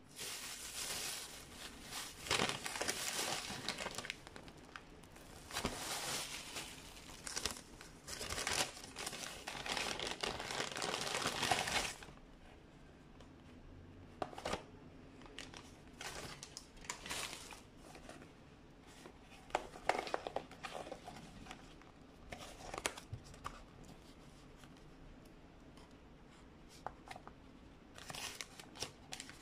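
Thin plastic bag crinkling and rustling as it is handled and opened, dense and loud for about the first twelve seconds. After that, sparser short rustles and taps as a cardboard box and paper burger wrapper are opened.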